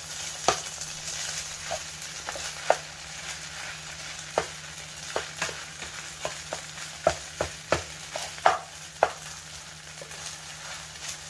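Kimchi fried rice with pork belly sizzling in a frying pan as a spatula stirs and tosses it. Irregular sharp taps and scrapes of the spatula against the pan sound over the steady sizzle, coming more often in the second half.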